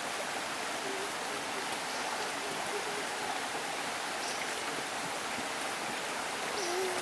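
Woodland creek water flowing: a steady, even rushing hiss.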